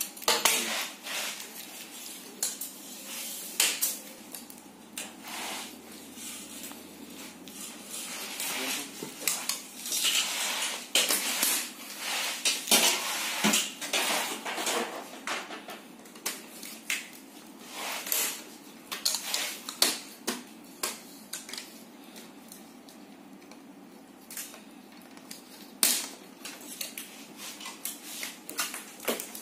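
Irregular clicks, taps and clatter of hard plastic and metal parts of an LED television being handled while it is taken apart, busiest through the middle.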